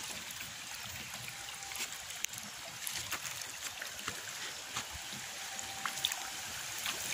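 Pond water stirred at the surface by a shoal of small carp fry feeding: a steady light trickling with many small scattered ticks and splashes.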